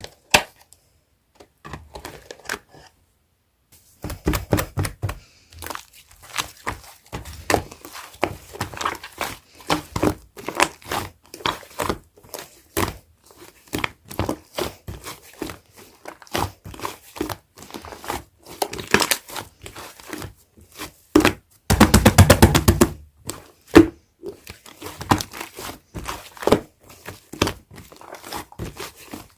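Hands squishing and poking a soft slime, making many small irregular crackling pops and squelches. The sound is sparse for the first few seconds, and there is a louder run of rapid popping about three-quarters of the way through.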